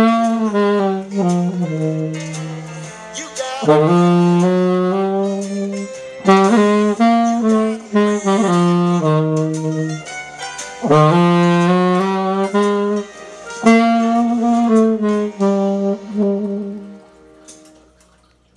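Solo saxophone playing a slow melody in a low-to-middle register, phrase by phrase with short pauses for breath, ending on a held note that fades away near the end.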